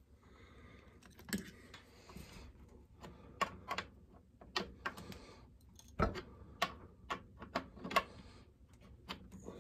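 Scattered light metallic clicks and taps as the Homelite Super XL-130's chain and bar are worked by hand, about ten in all at uneven spacing, with a deeper knock about six seconds in.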